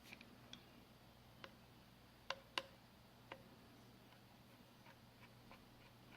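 Scattered light clicks and taps, with two sharper ones about two and a half seconds in, from a small Phillips screwdriver and tiny screws being handled on a phone's frame.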